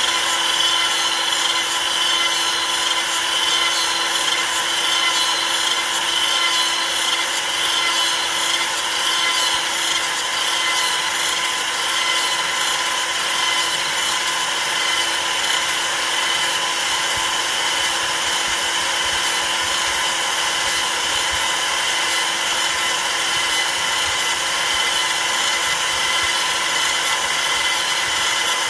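CNC router spindle with a long straight bit milling a wooden leg turned on a rotary axis: a steady spindle whine over the continuous noise of the bit cutting into the wood.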